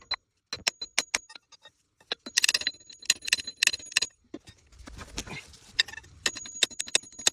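Bursts of sharp metallic clicks and clinks with a ringing tone, in clusters, with a short rushing noise about five seconds in.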